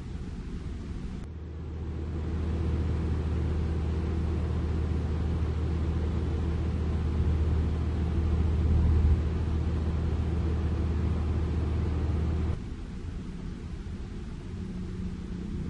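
A heavy vehicle's engine running with a deep, steady rumble. It swells about a second in, is loudest around nine seconds, and cuts off suddenly near the end.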